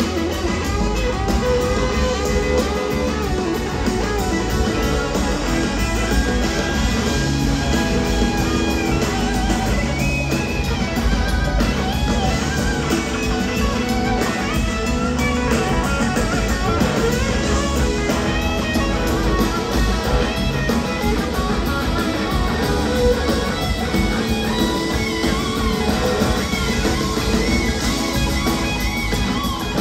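Live rock band playing, with electric guitars over bass, keyboards and drums, recorded from the audience.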